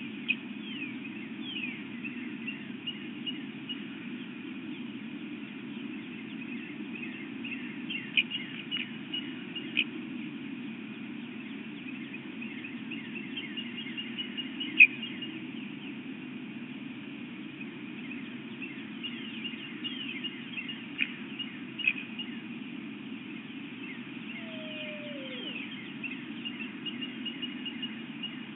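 Many short, high chirps that drop in pitch, scattered throughout, a few of them sharper and louder, over a steady low hum. Near the end, one lower call slides downward in pitch.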